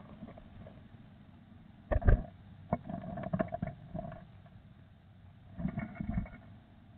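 Adult blue tit scrambling about inside a wooden nest box as it climbs out, its feet and wings knocking and scraping on the box: a loud thump about two seconds in, a run of clicks and scratches, then another cluster of thumps near the end.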